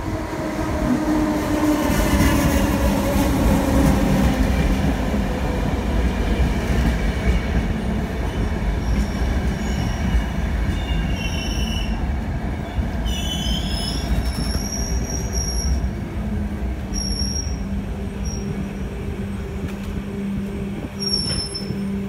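ÖBB class 4020 electric multiple unit braking to a stop: the whine of its nose-suspended (Tatzlager) traction motors and gearing falls steadily in pitch over a heavy rumble as it slows. From about nine seconds in, high squeals come and go, and a steady low hum remains as it comes to rest, echoing in the underground station.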